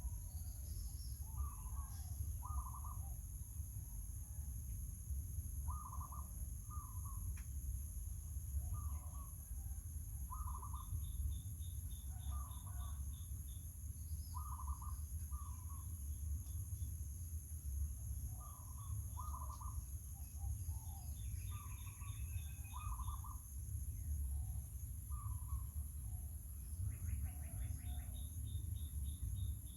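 Birds calling: short calls repeated about once a second, with quick trills higher up now and then, over a steady low rumble.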